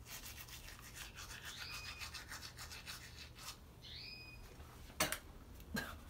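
Teeth being brushed with a battery spin toothbrush, bristles scrubbing with a steady rubbing rhythm over a low hum, which fades a little past halfway. A bird chirps twice in the background, and two sharp knocks come near the end.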